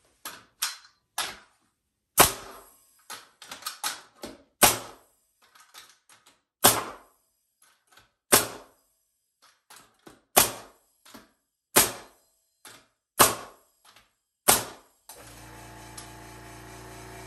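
Pneumatic framing nail gun firing 3-inch nails into wood: about eight sharp shots a second and a half to two seconds apart, with lighter clicks between. Near the end the Makita MAC320Q 3-gallon quiet compressor's motor kicks on with a steady hum as the tank pressure runs down.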